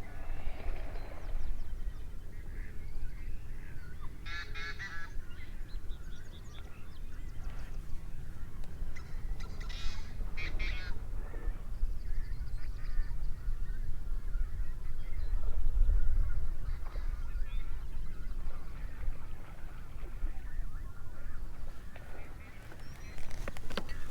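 Waterbirds calling in short bursts of rapid honking notes, one burst about four seconds in and a louder one about ten seconds in, over a steady low rumble.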